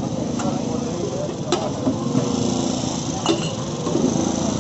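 Three sharp knocks about one to two seconds apart, over steady street noise with traffic and faint voices.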